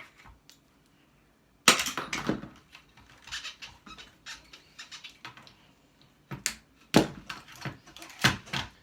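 Hand tools knocking and clanking against a small electric motor as its shaft is worked out. A loud ringing strike comes about two seconds in, and a few more sharp knocks come near the end.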